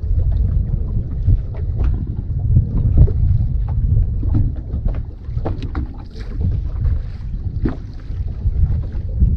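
Wind buffeting the microphone in a small fishing boat on the water, a gusting low rumble, with scattered light knocks and ticks.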